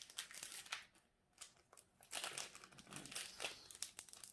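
Thin plastic packaging crinkling as it is handled, in irregular crackly bursts with a short pause about a second in.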